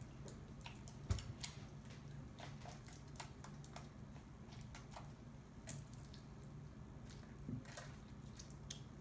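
Homemade glue, baking-soda and saline slime being kneaded and squeezed in the hands, giving scattered faint sticky clicks and small squelches, one a little louder about a second in. A low steady hum runs underneath.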